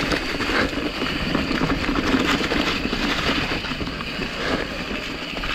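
Mountain bike riding down a dirt trail: steady tyre and wind noise with frequent small rattles and knocks of the bike over bumps.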